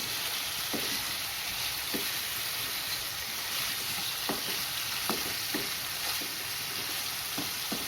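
Chicken and cucumber pieces frying in spiced oil in a pan, a steady sizzling hiss, with a spatula clicking against the pan about seven times as it is stirred.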